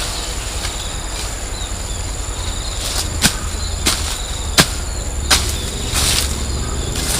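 Four sharp knocks, spaced a little under a second apart in the middle, over a steady high insect drone and a low rumble.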